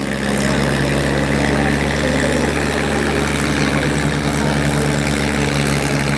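Sonalika and Farmtrac tractors' diesel engines running hard under full load as the two tractors pull against each other, back to back, rear wheels spinning. A steady, unchanging engine drone.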